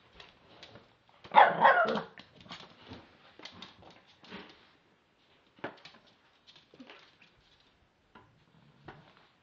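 Chihuahua–shih tzu cross puppy gives one loud, wavering bark about a second in, with scattered light taps and clicks around it.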